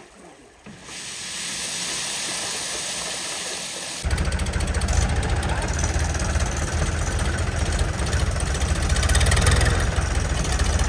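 A steady hiss for the first few seconds, then an abrupt switch to a diesel tractor engine running steadily with a fast, even low pulse.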